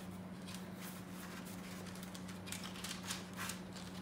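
Soft rustling and light scraping as a wooden cigar box and the thin paper sheet over its cigars are handled, a few faint scratchy clicks spread through it, over a steady low hum.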